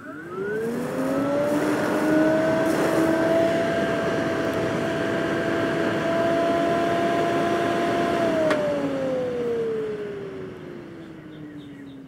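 Electric radiator-type cooling fan in a mini excavator's engine compartment switched on. It spins up with a rising whine and runs steadily with a rush of air. About eight seconds in it is switched off and winds down with a falling whine. It is still spinning the wrong way, drawing air in instead of pushing it out, because its wire polarity has not yet been reversed.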